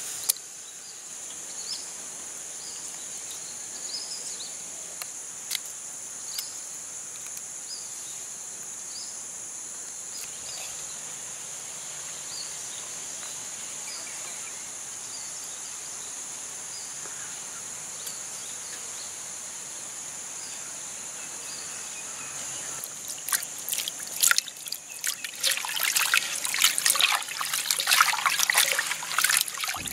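Hands splashing and rinsing raw prawns in a pot of water, with water trickling and sloshing from about three-quarters of the way in. Before that, only a steady high-pitched drone and faint small chirps.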